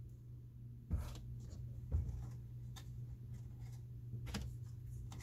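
Magic: The Gathering cards being handled over a playmat. There are a few soft taps and slides as cards are moved and a double-faced card is turned over, with a low steady hum under them.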